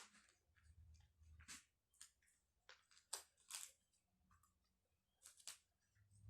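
Faint paper crackling and tearing as a cut-out carrot picture, stuck fast, is worked loose from a workbook page: a scatter of short rips and crackles, the sharpest about a second and a half, three and five and a half seconds in.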